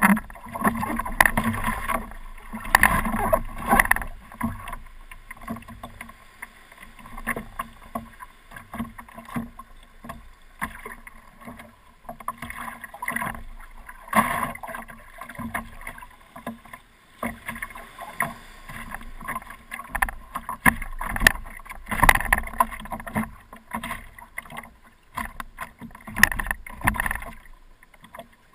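Water splashing against a stand-up paddleboard as it is paddled, heard close from the board's deck, with a surge of splashing from each paddle stroke every second or two.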